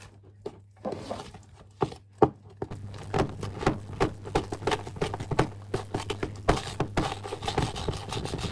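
Wet sugar icing being stirred hard in a bowl right at the microphone: sticky, squelching slaps, a few at first, then a quick steady run of them, about three or four a second, from about three seconds in.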